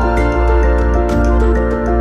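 Background music: held chords that change every second or so over a deep bass, with light regular ticking percussion.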